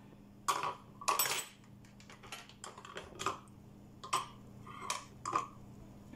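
Light clinks and knocks of kitchen utensils and dishes being handled on a counter, about ten at irregular intervals. A faint steady hum runs underneath.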